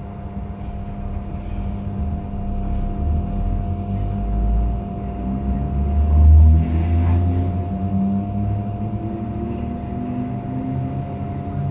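Interior of a British Rail Class 317 electric train on the move: the traction motors and gearing whine over a low running rumble. The whine climbs in pitch through the second half as the train picks up speed.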